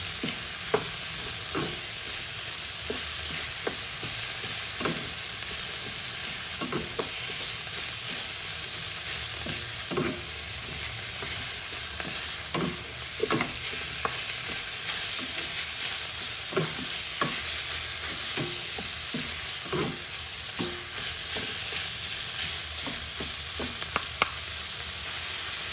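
Ground pork with tomato and onion sizzling in oil in a wok, browning. Wooden spatulas stir it, scraping and tapping against the pan at irregular moments.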